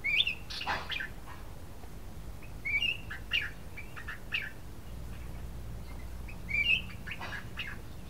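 Black-crested bulbul (cucak kuning) singing three short phrases a few seconds apart. Each phrase opens with a rising whistled note and runs into a few quick, sharper notes.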